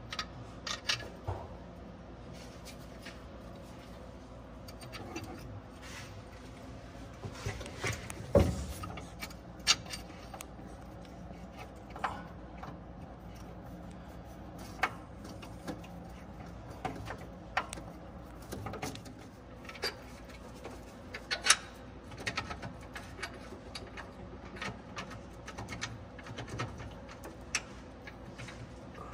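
Scattered metal clinks and knocks of hand tools and a new Delco alternator being handled and fitted to its mount in a bus engine bay, the sharpest knocks about 8 seconds in and again near 21 seconds, over a faint steady hum.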